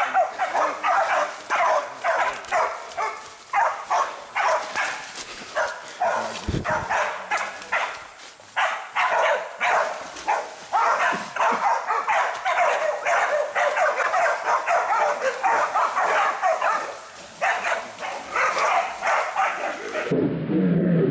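A pack of hunting dogs barking rapidly and without a break: bailing dogs holding a feral boar at bay. The sound changes abruptly about a second before the end.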